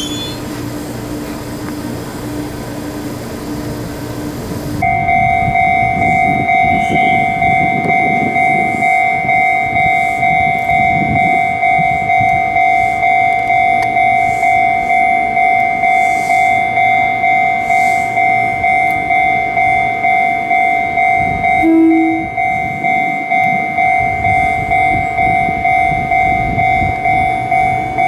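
A Fujikyuko Line train running. About five seconds in, a railway level-crossing alarm starts ringing in a steady rhythm of about two strokes a second and keeps going, with train rumble underneath.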